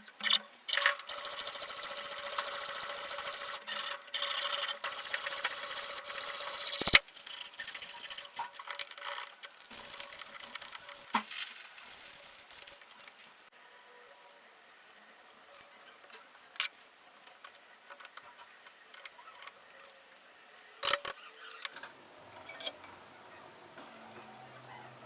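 Harsh rasping, scraping workshop noise of a tool working on a hard material for about six seconds, stopping abruptly, then faint scattered clicks and taps.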